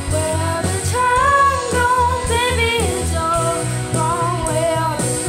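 A girl sings the lead vocal melody over a band with a drum kit keeping a steady beat.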